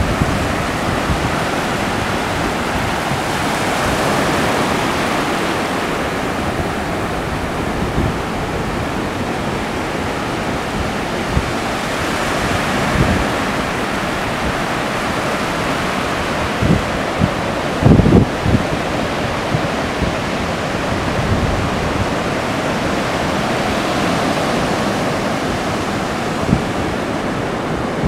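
Ocean surf breaking and washing up a flat sandy beach: a steady rushing of water and foam that swells and eases as each wave comes in. A few short low thumps of wind on the microphone, the loudest about eighteen seconds in.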